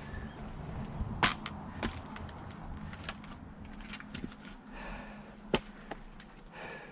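Firewood being split by hand: two sharp wooden cracks about four seconds apart, with lighter knocks of wood between them and heavy breathing.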